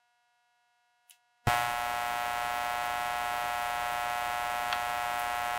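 Near silence, then about a second and a half in a steady electrical hum with many overtones cuts in abruptly and runs on.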